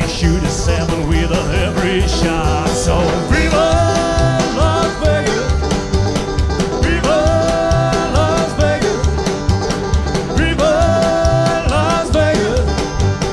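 Up-tempo country song with a steady, driving beat and long held melody notes over it.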